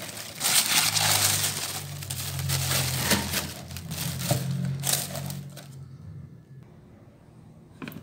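Brown honeycomb kraft packing paper and tissue paper crinkling and rustling as they are pulled and pushed aside in a cardboard box, dying away about two-thirds of the way through, with a low steady hum underneath.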